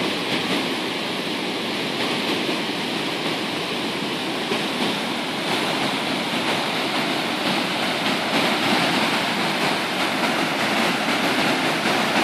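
Floodwater rushing steadily over a low concrete river weir, the river swollen after heavy rain; the churning grows a little louder in the second half.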